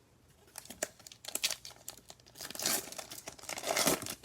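Prizm basketball card pack's foil wrapper being torn open and crinkled by hand: scattered rustles and clicks, with two louder crinkling stretches in the second half.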